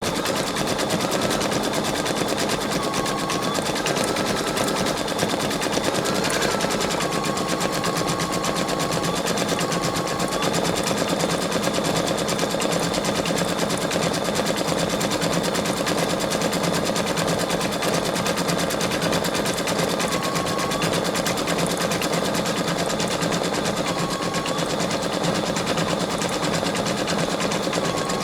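Embroidery machine stitching at speed: a fast, even clatter of needle strokes, with a faint motor whine that steps up and down in pitch now and then.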